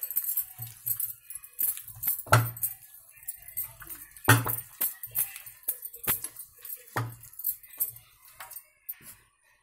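Glass bangles on a wrist clinking and jingling as a hand mixes battered chicken pieces in a plate, with three sharper knocks about two, four and seven seconds in.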